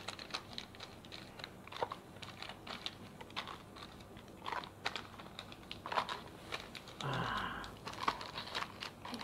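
Small camera mounts in plastic bags being handled and packed back among cardboard boxes: scattered light clicks, taps and crinkling of plastic, with a longer rustle about seven seconds in.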